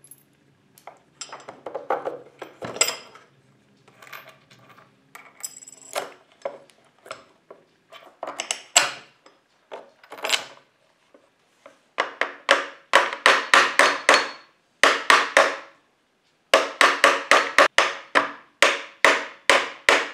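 Steel bolts, nuts and washers clinking and being set down on a plywood board while wheeled steel trolley brackets are positioned, then a hammer tapping sharply and steadily, about three strikes a second, in two runs from about halfway through.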